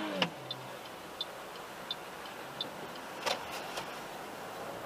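A car's turn-signal indicator ticking evenly, about one tick every 0.7 seconds, over the low hum of idling traffic. A few louder clicks come about three seconds in.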